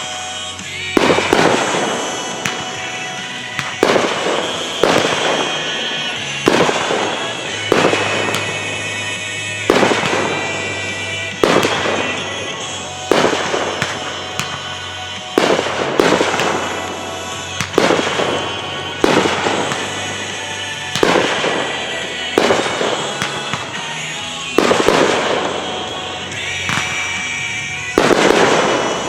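Fireworks bursting about once a second, each sharp report fading away before the next, with music playing underneath.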